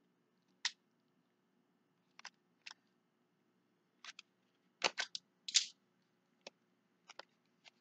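Scattered small clicks and crackles of a perfume box and its wrapping being handled and opened, with the loudest a little past halfway.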